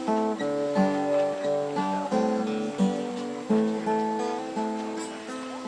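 Acoustic guitar music, plucked and strummed, with a new chord struck about once a second.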